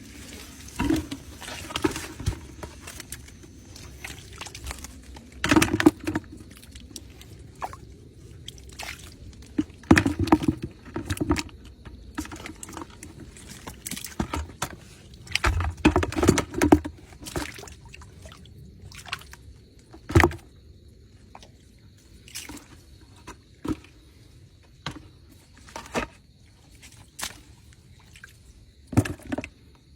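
Water splashing and sloshing in irregular bursts, with scattered knocks and clicks between them.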